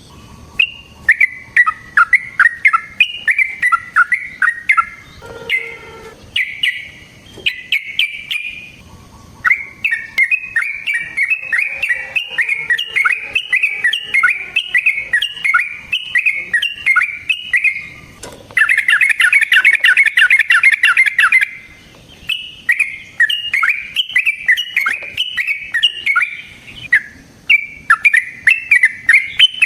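Yellow-vented bulbul singing long runs of quick, bubbly chirped notes, with a faster, denser trill for about three seconds past the middle. This is the long 'ropel' song used to rouse other bulbuls to sing.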